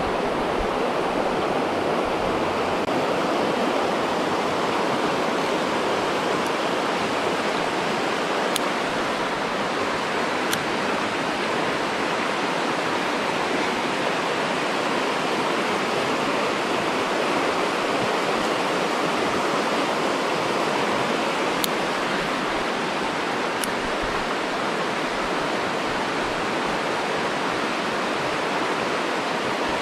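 Rapids of a mountain stream rushing steadily, a constant even hiss of flowing water.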